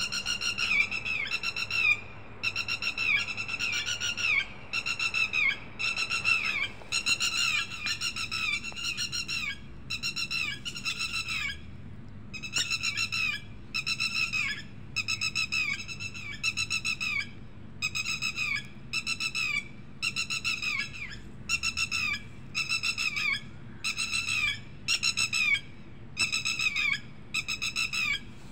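Red-wattled lapwing giving sharp whistled calls, short notes in quick runs of two to four, repeated every second or two.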